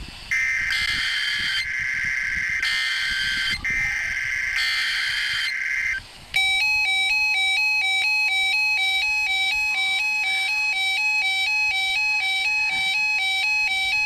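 NOAA weather radio sounding an Emergency Alert System message: buzzy digital data bursts of the EAS (SAME) header, broken once briefly. About six seconds in, the Reecom weather radio's own alert takes over, a loud electronic tone pattern rapidly alternating between pitches, signalling an incoming weather alert.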